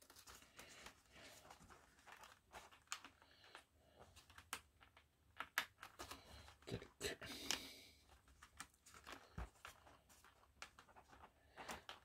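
Faint handling noises: scattered small clicks, creaks and crinkles as foam airframe parts of a toy RC plane are pressed and fitted together by hand.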